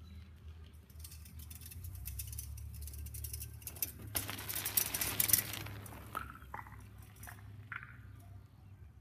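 Bicycle tyres rolling over a gravel driveway, growing louder as the bike approaches, loudest as it passes close by about four to five seconds in, then fading. A few short high chirps follow.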